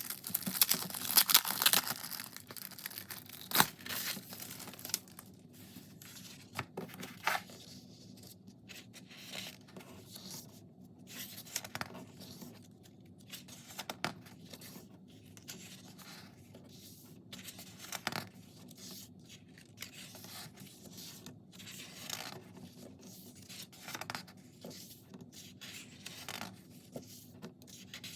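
Paper being handled and torn: a loud stretch of tearing and rustling in the first two seconds, then scattered shorter rustles and light taps.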